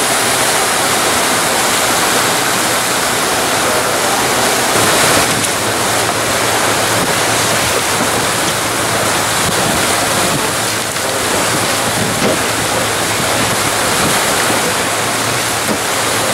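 Boat running at speed: steady rush of the churning wake and wind buffeting the microphone, with a low outboard engine hum underneath.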